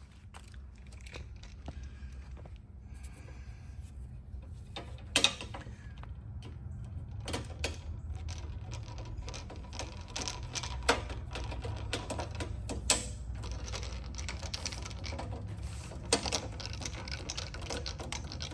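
Screws being driven into flush bolt hardware in an aluminum door: irregular small metallic clicks and scrapes of the screwdriver and parts, with a few sharp ticks, over a steady low hum.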